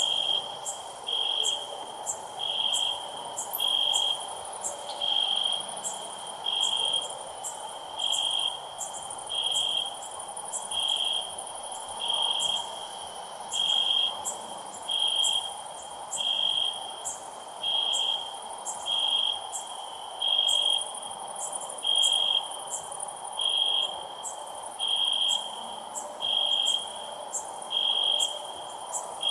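Crickets chirping: one high, half-second chirp repeating evenly about every second and a third, over a steady chorus of fainter, higher insect ticks.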